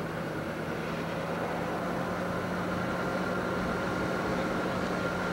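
Car engine running, heard from inside the car: a steady hum under even noise, with a faint high whine.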